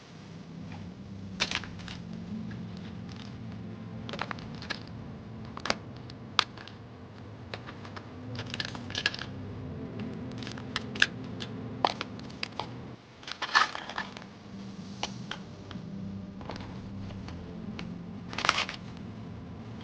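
Metal mortise lock cylinders clinking and clattering as they are handled and dropped into bins: irregular sharp clicks, with louder clatters about two-thirds through and near the end.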